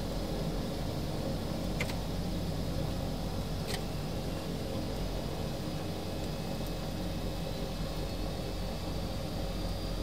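Aircraft engines running steadily while the plane taxis, a constant low rumble with a faint high whine. Two brief clicks about two seconds apart.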